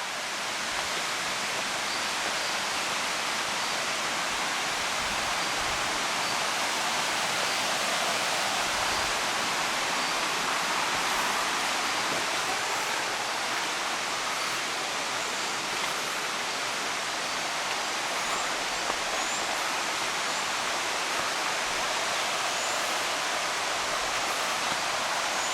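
Steady rush of a jungle stream's flowing water. Faint short high calls repeat over it, with a few short rising ones near the end.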